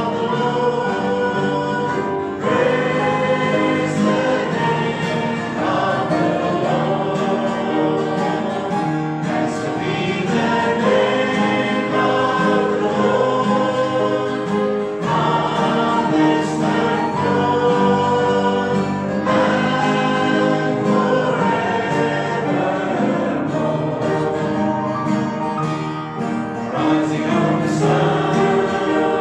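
A congregation singing a gospel hymn together, many voices holding long sustained notes.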